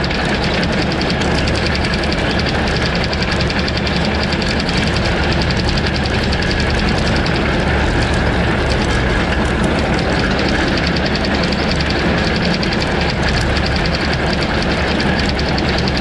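John Deere 1209 mower-conditioner cutting hay behind a Farmall 560 tractor. The tractor engine runs steadily under load with the fast, even rattle of the mower's cutting and conditioning parts.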